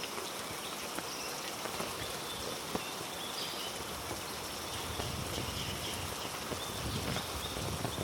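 Steady heavy rain falling on rainforest foliage, with scattered drips ticking close by and faint high chirps behind it. Low thuds come in during the second half.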